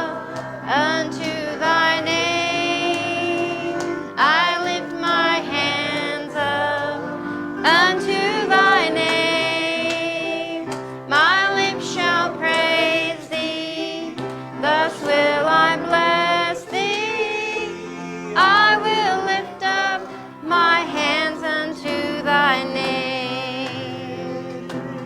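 Worship singers, led by a woman's voice, singing a gospel song over a steady instrumental backing.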